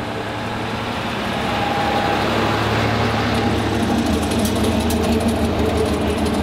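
Pickup truck's engine running steadily as it drives past towing a car on a strap, with tyre noise on the road, growing louder over the first two seconds and then holding steady.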